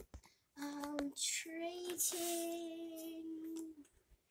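A young girl singing a short tune in three held notes, the last one the longest.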